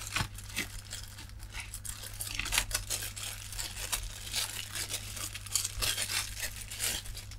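Clear plastic bag crinkling and rustling as hands work at it and tear it open to free a set of multimeter test leads, in a run of irregular crackles.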